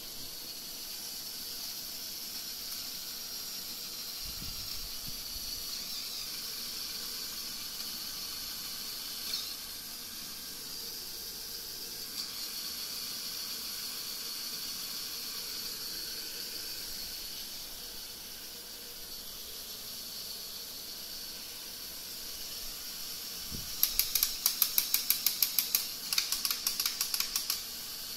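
Lego Technic Cargo Plane's battery-powered electric motor spinning the propellers: a steady high whirring hiss. Near the end, a quick series of sharp clicks in two bursts.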